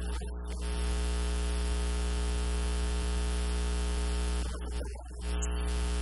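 Steady electrical buzz with a low mains hum and hiss, drowning the sound track; it breaks off briefly a little after four seconds in, where a bit of voice comes through, then returns.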